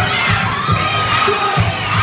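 Large crowd of young spectators cheering and screaming, many high voices shouting at once.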